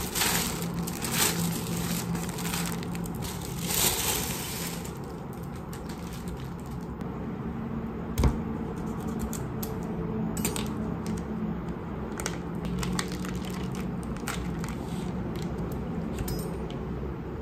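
A plastic carrier bag rustling and crinkling as it is handled. Then a knife slits open a plastic tofu package on a plastic cutting board, with packaging crinkles, light taps and one sharp knock about eight seconds in.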